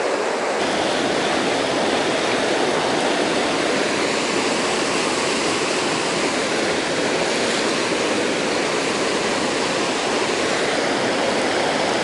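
Fast, clear mountain stream rushing over low stone weirs: a steady, even rush of water.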